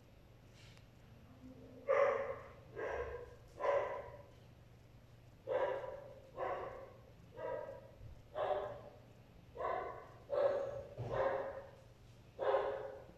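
Small dog barking: about a dozen single barks, roughly one a second, beginning about two seconds in.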